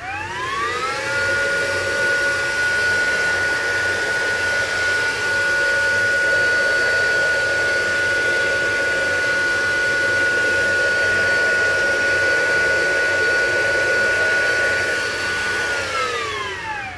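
Hoover Evolve Pet cordless vacuum's motor spinning up with a rising whine, running steadily at full speed with a high whine over rushing air, then winding down with a falling whine near the end.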